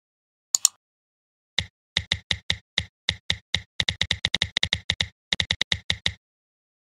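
Computer keyboard typing: about thirty quick keystrokes over roughly four and a half seconds, typing out a short line of text. A single mouse click comes about half a second in, before the typing starts.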